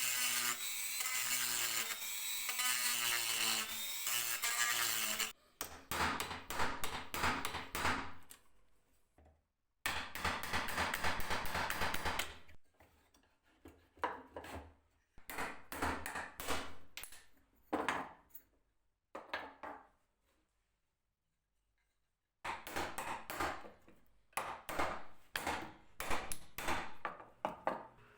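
A small power tool runs with a steady whine for about five seconds, then stops. Then come spurts of fast, rhythmic scraping strokes of a tool on wood, separated by short pauses, with a brief silence about twenty seconds in.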